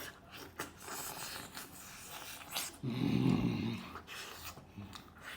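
Close-up eating sounds of someone working through mutton pieces: scattered small wet clicks and chewing noises, with a low, drawn-out grunt of a moan lasting about a second, about three seconds in.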